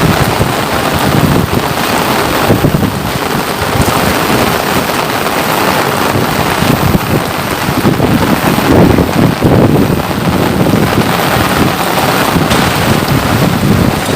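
Steady rain falling, loud and close, with an uneven low rumble that swells and fades throughout.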